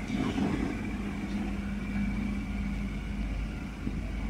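An engine running steadily at idle, a constant low hum with a faint higher tone above it.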